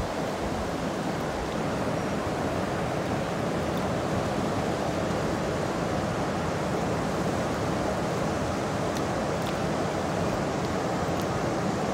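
Steady rush of river water pouring over a dam spillway and churning through the whitewater below it.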